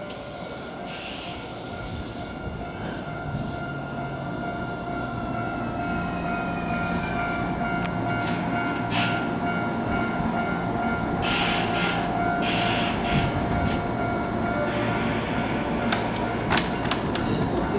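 Kintetsu 9020 and 9820 series electric multiple unit pulling into a station platform and braking to a stop. Its VVVF inverter motor whine falls in pitch as it slows, over wheel rumble with a steady brake squeal. Short bursts of air hiss come near the end, as the train stops.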